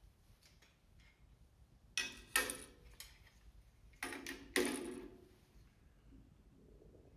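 Four sharp clacks of hard objects knocking together, in two pairs about two seconds apart, each with a short ringing decay.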